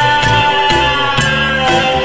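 Instrumental break in a song: a long held lead note that drops in pitch about a second and a half in, over a bass line and a steady drum beat of about two hits a second.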